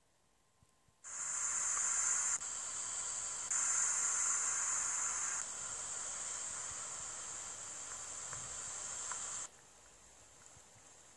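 A steady, high hiss that starts abruptly about a second in, jumps up and down in level a few times as if cut between takes, and stops suddenly near the end.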